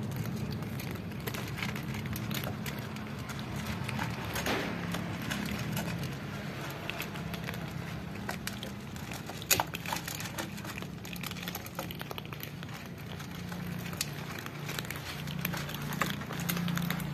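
A group of cats crunching dry kibble from a shared basin, with many small scattered clicks of chewing and of kibble against the bowl, and a sharper click about nine and a half seconds in. A steady low hum runs underneath.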